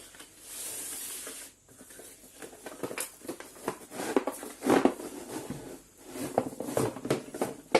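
Packaging being opened and the push-up board's parts handled: a hiss of about a second near the start, then crinkly rustling with many small clicks and knocks.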